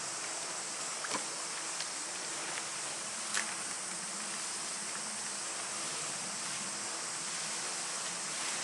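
Steady outdoor background hiss with a couple of faint light taps, one about a second in and one about three and a half seconds in.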